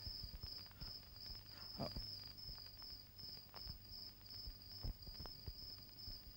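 Crickets chirping as a faint, steady high trill, with a few soft clicks here and there.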